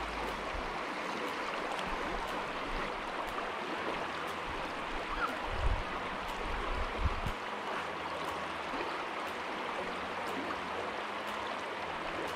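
River current rushing steadily over a shallow riffle, with a few dull low bumps about halfway through.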